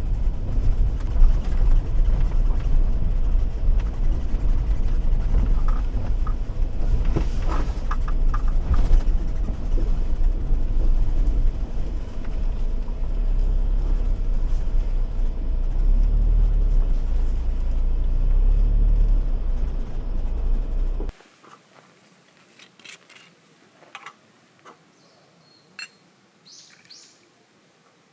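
Car driving: steady low road and engine rumble. About three quarters of the way through it cuts off abruptly to a quiet background with a few faint clicks and knocks.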